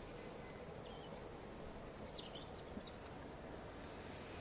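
Faint outdoor ambience: a steady low background with small birds chirping now and then, the clearest calls about two seconds in.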